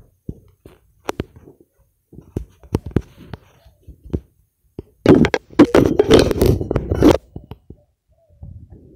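Handling noise on a phone's microphone: scattered taps and clicks, then about two seconds of loud rubbing and scraping over the microphone a little past halfway.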